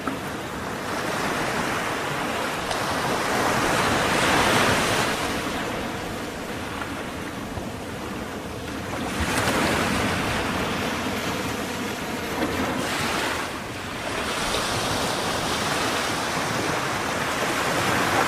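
Stock sound effect of ocean waves: a steady rushing wash of surf that swells and falls back in slow surges every few seconds.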